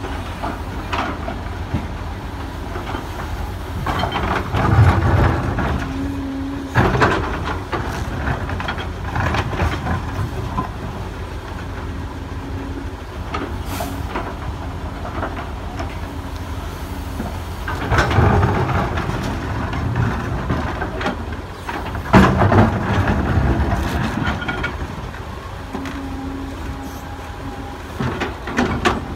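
Hitachi hydraulic excavator's diesel engine running and working up under load as it digs rocky soil, with the bucket scraping and rocks and soil clattering and crashing several times, loudest about five seconds in and again near eighteen and twenty-two seconds.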